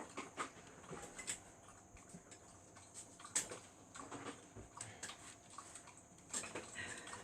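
Faint, scattered metal clicks and taps of pliers working a dishwasher hose fitting.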